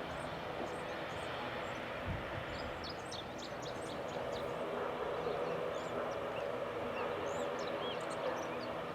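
Steady aircraft engine noise, with small birds chirping high above it through the middle of the stretch.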